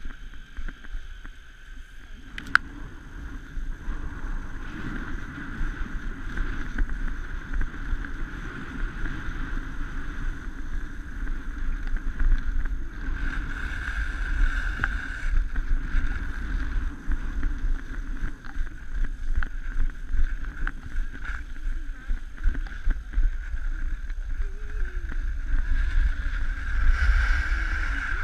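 Skis sliding and scraping over packed snow on a downhill run, with wind rumbling across the microphone. One sharp click comes about two and a half seconds in.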